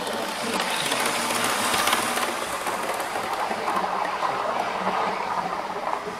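A model train running on the layout track, out of view: a steady rushing run that swells about half a second in and eases off near the end.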